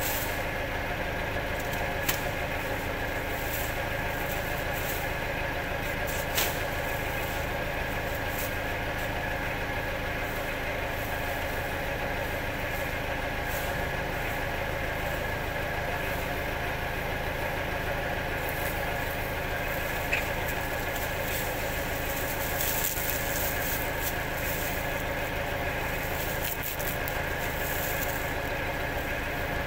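A steady mechanical hum of a running engine or machine, made of several steady tones, with a few short knocks about two, six and twenty seconds in.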